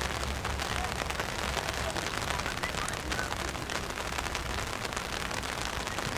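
Steady rain, with many small ticks of drops close by over an even hiss.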